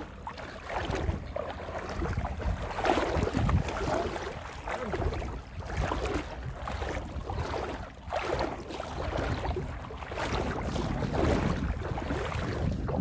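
Water sloshing and splashing in irregular surges every second or two, over a steady low rumble of wind on the microphone.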